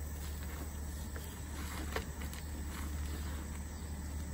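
Steady low hum with a few faint knocks from a plastic tub being handled.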